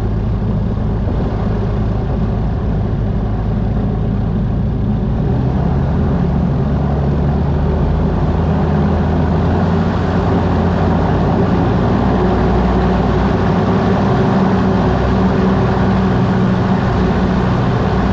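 Gyrocopter's engine and pusher propeller running steadily at low power on the ground, a little stronger from about five seconds in, heard from inside the cockpit.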